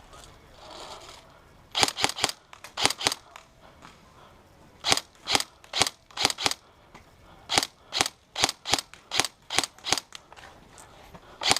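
Airsoft guns firing single shots, each a sharp crack: short strings of two to four shots, then a steadier run of about three shots a second in the second half.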